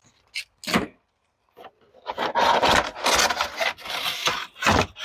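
Packaging being pulled off an egg incubator: a couple of light knocks, then a stretch of scraping and rubbing with a sharper knock near the end.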